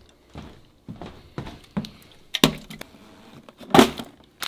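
Handling noises while packing a hard plastic cooler: soft thumps about twice a second, a sharp knock about halfway through, and a louder clunk near the end as items are set inside.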